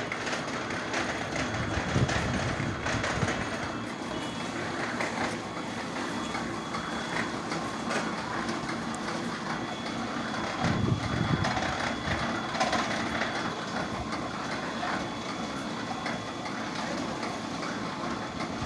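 Brick-making machine running, with a continuous mechanical clatter and rumble. Heavier surges come about two seconds in and again around eleven seconds.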